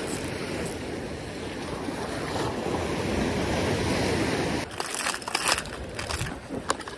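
Sea waves washing against shoreline rocks, with some wind on the microphone. From about two-thirds in, a run of clicks and rattles as lures are handled in an open plastic tackle box.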